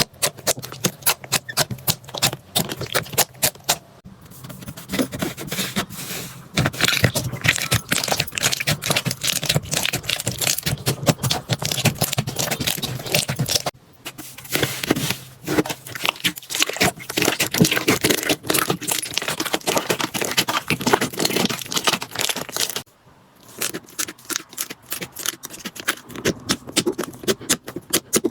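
Slime being squeezed, poked and stretched by hand, giving off dense crackling with rapid sharp clicks and pops. There are three brief pauses in it.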